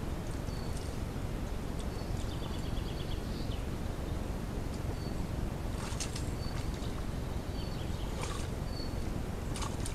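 Woodland birds calling: short high whistled notes repeating every second or so and a quick trill, over a steady low rumbling background noise. A few brief scratchy noises stand out about six, eight and nine and a half seconds in.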